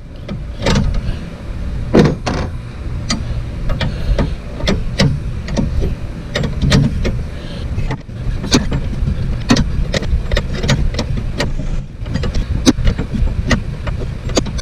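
Wrenches clinking and knocking on metal as A/C line fittings are loosened: irregular sharp clicks, a few a second, over a steady low rumble.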